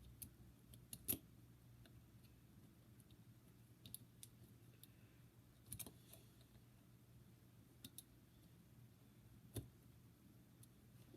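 Faint, scattered clicks and taps of a small screwdriver and metal parts as a screw is worked into a model steam locomotive, about half a dozen sharp ticks over a low steady hum.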